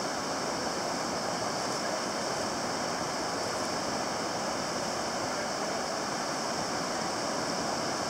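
Steady, unbroken rushing of surf and open sea along a shallow tidal beach.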